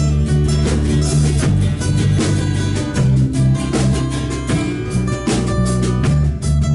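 Band playing: guitar over a drum kit and bass line, with a steady beat.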